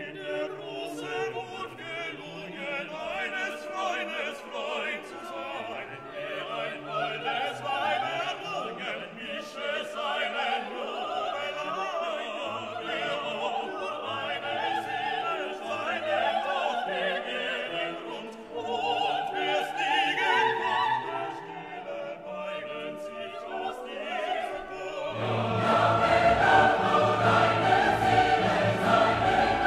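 Background music: operatic singing with an orchestra, growing louder and fuller near the end.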